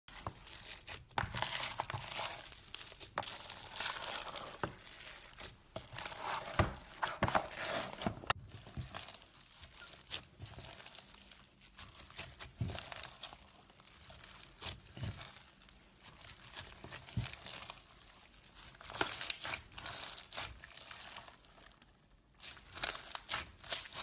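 Green bead-filled crunchy slime being squeezed, stretched and pulled apart by hand, crackling and crinkling in irregular bursts of tiny pops as the beads shift and the slime tears.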